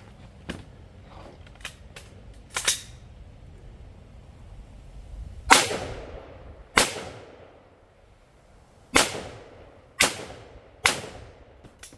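Six gunshots from a firearm fired on a timed shooting stage, spaced irregularly over about eight seconds, each ringing out with a short echoing tail; the second shot is the loudest.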